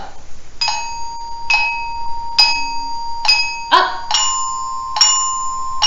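Orchestra bells (a Ross glockenspiel) struck with mallets: four evenly spaced, ringing B-flat notes, then three ringing C notes a whole step higher.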